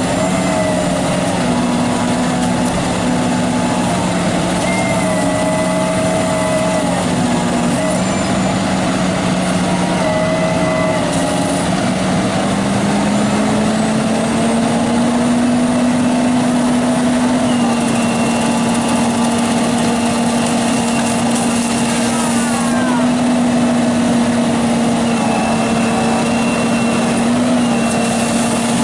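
A machine engine running steadily, of the kind used in tree removal. Its pitch rises a little about twelve seconds in and then holds.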